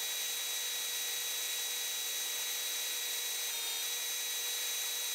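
Cordless drill running at a steady speed, boring a hole into the end of an air compressor's crank. The hole is to take a slide hammer that will pull the press-fitted crank off its shaft. It makes an even whine over the hiss of the bit cutting metal, with a slight change about three and a half seconds in.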